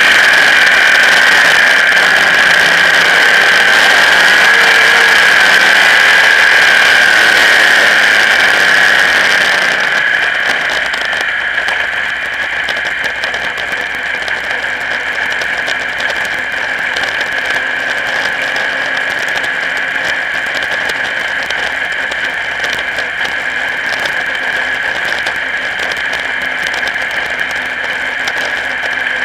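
Modified race car's engine running hard with wind noise, heard from a camera mounted on the car's hood. About ten seconds in the sound drops and the engine runs on more quietly and steadily.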